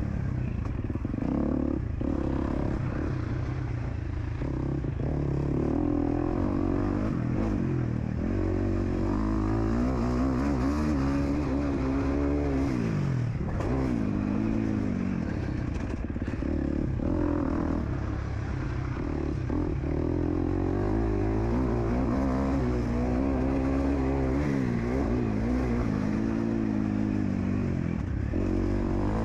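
KTM 250 SX-F four-stroke single-cylinder motocross engine heard on board while riding, revving up and down with the throttle, with a deep fall in revs about thirteen seconds in before it picks up again.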